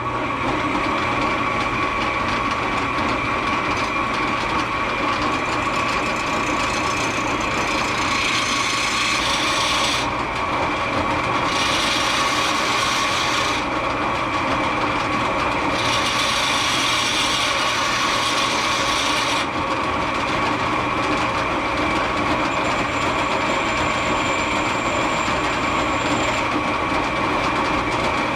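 Small electric motor running steadily with a constant whine, switched on just before. A rushing hiss rides over it and comes and goes several times.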